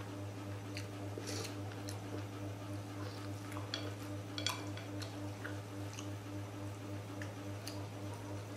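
A person eating a noodle salad with chopsticks: scattered chewing and slurping mouth sounds and small clicks, the sharpest about four and a half seconds in, over a steady low hum.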